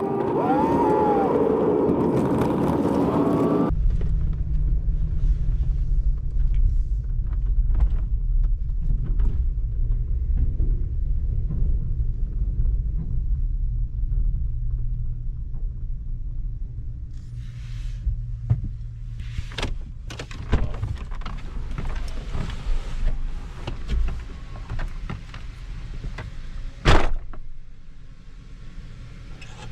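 Truck engine running at low speed, heard from inside the cab as a steady low rumble that slowly eases off. It is broken by scattered clicks and thunks, and one sharp loud knock near the end. A wavering higher sound is heard in the first few seconds.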